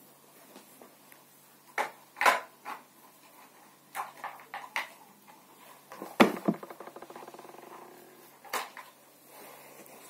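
Handling noise: scattered knocks and clatter of objects being moved. Partway through, one knock sets off a rapid rattle that slows and fades over about two seconds.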